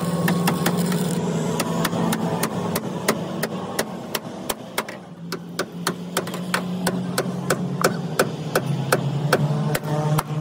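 Hammer blows in a steady rhythm of about three a second, over a steady low hum.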